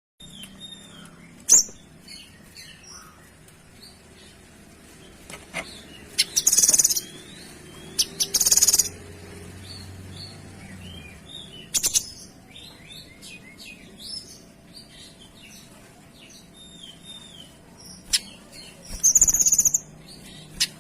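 A kinoy songbird singing. Scattered short chirps are broken by three loud bursts of very fast, high notes, the dense 'shots' of its song: two close together about six and eight seconds in, and one near the end. A few sharp clicks stand out between them.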